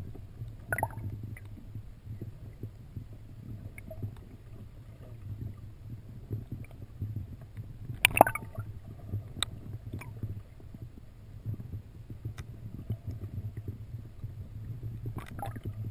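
Muffled low rumble of water around an underwater camera, with a few sharp knocks, the loudest about eight seconds in.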